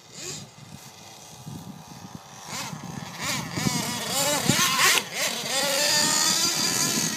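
Thunder Tiger MTA Sledgehammer nitro RC monster truck engine revving, its pitch rising and falling repeatedly and growing louder from about three seconds in.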